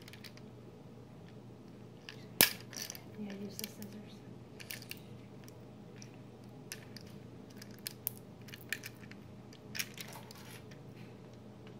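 Hands handling and unwrapping a small blind-bag package: scattered clicks and crinkles of the wrapping, with one sharp, loud click about two and a half seconds in.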